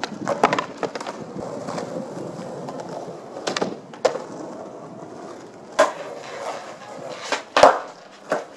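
Skateboard wheels rolling on concrete, broken by a string of sharp clacks as boards are popped, hit the flat bar and land. The loudest clack comes near the end.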